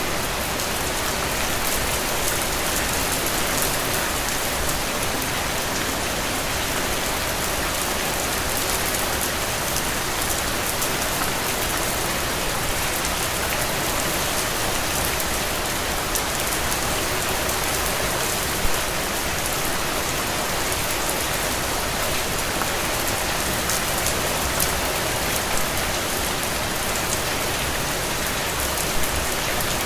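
Steady rain falling on a window, a dense even patter of drops.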